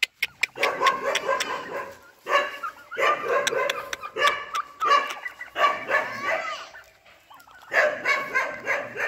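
Domestic turkeys gobbling: about seven rattling calls, each roughly a second long, one after another, with a short gap a little past halfway.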